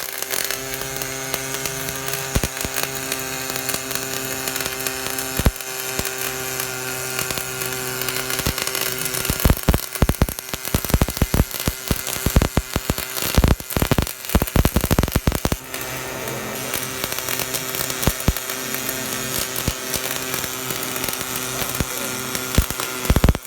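Automatic arc welder running a weld: irregular crackling and spitting from the arc over a steady electrical hum from the welding machine. The crackle grows dense and busy for several seconds from about ten seconds in.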